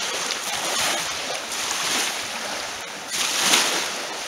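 Small waves washing onto a sandy lakeshore, with wind on the microphone; the wash swells louder a little past three seconds in.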